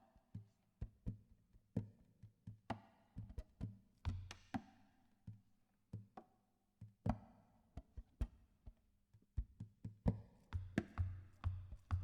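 A string of irregular knocks and taps, several to the second, some with a brief ringing tone after them. Sustained guitar chords come back right at the end.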